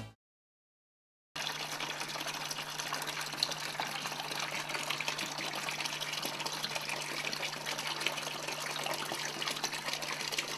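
Water poured in a steady stream from a plastic pitcher into a plastic bucket, filling it; the pouring starts about a second in, after a brief silence.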